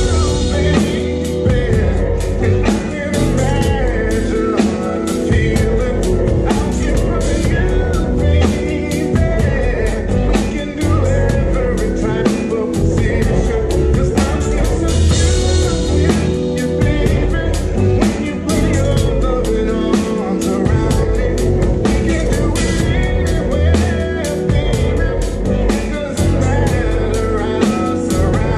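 Live band music, with a drum kit played loud and close: a steady run of kick, snare and cymbal hits over guitar and a singing voice.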